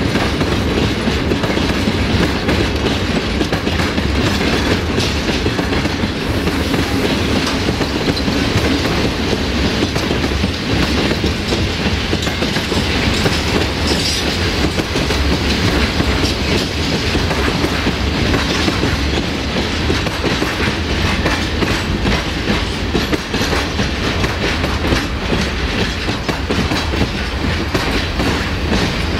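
Freight train of covered hopper wagons rolling steadily past at close range: a continuous rumble of wheels on rail with a rapid clickety-clack of the wagons' wheelsets over the rail joints.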